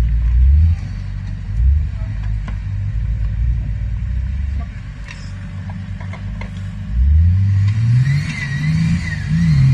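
Off-road vehicle engine rumbling unevenly at low revs, then revving up sharply about seven seconds in and holding high revs, with a higher whine rising above it.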